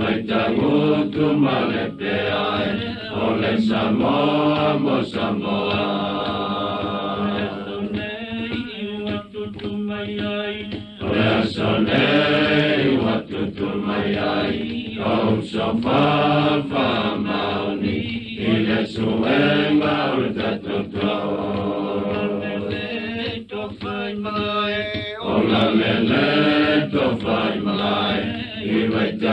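A group of voices singing a traditional Samoan song, the melody moving in repeated rising-and-falling phrases over a steady held low note.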